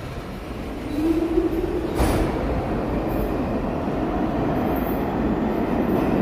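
New York City subway train in the station with its motors winding up in a rising whine, a sharp click about two seconds in, then a steady rumble as it gets moving.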